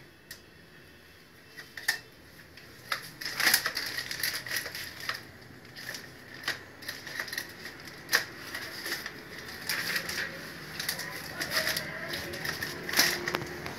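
Packaging being handled as the dishwasher is unpacked: irregular rustling and crinkling with scattered sharp clicks and knocks, loudest about three and a half seconds in and again near the end.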